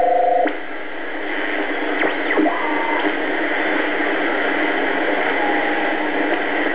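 Shortwave static and hiss from a BC-312G receiver's speaker as it is tuned. A pair of steady tones cuts off about half a second in, then brief whistles sweep past around two to three seconds in as signals slide through the tuning.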